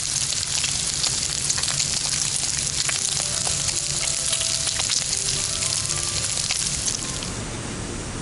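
Food frying in a hot pan: a steady crackling sizzle full of small pops. A little before the end it gives way to a smoother, quieter rushing noise.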